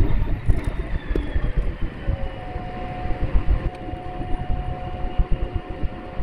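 Vehicle engine running while driving, with an uneven low rumble and bumps from rough going; a steady whine comes in about two seconds in.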